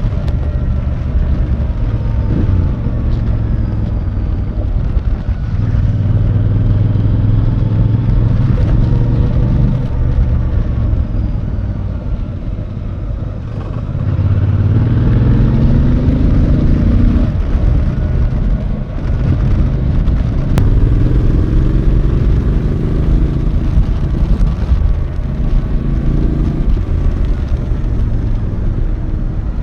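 Royal Enfield Bear 650's 648cc parallel-twin engine heard from the saddle while riding, the revs rising and falling with throttle and gear changes; the revs drop about twelve seconds in, then climb again several times.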